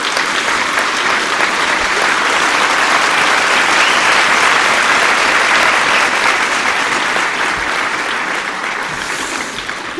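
Audience applauding, the clapping building to a peak about midway and tapering off toward the end.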